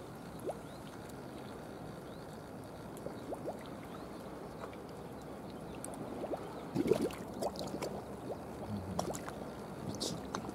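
Seawater sloshing and lapping at a harbour wall, with a few short splashes and knocks in the second half.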